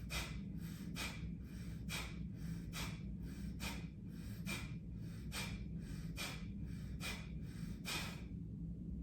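Kapalbhati pranayama breathing: short, forceful exhalations pushed out through the nose about once a second, with passive inhalations between. The strokes stop shortly before the end.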